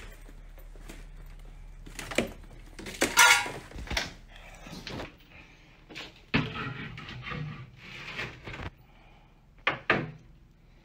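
Wooden doors being handled and opened: a string of sharp knocks and bangs, the loudest about three seconds in, with a small room's echo.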